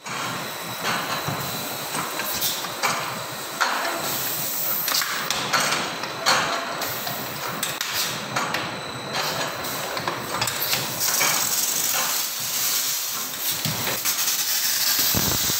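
Automatic rotary soda filling and capping machine running: a steady hiss with frequent short metallic clanks and knocks as the bottles move through the filler.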